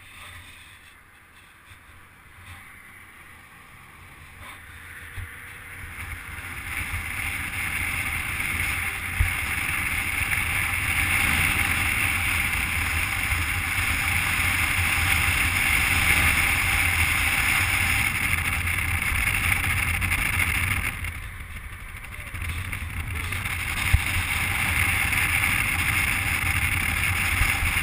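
Wind rushing over a camera microphone held out of a moving car's window, with a low rumble of road and tyre noise. It builds over the first ten seconds, eases briefly about three quarters of the way through, then comes back up.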